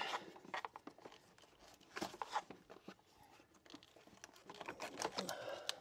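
Faint scattered clicks and plastic rustling of hands working the radiator fan's electrical connector loose, with small clusters of clicks about two seconds in and near the end.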